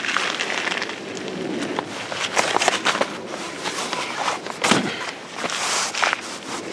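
Rustling and irregular knocks and clicks of things being handled, with one heavier knock a little before the end.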